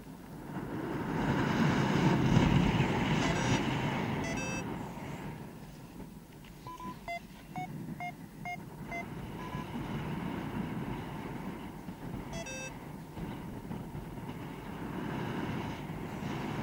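Wind rushing over the microphone during a paraglider flight. About seven seconds in, a paragliding variometer gives a quick run of short electronic beeps, about three a second.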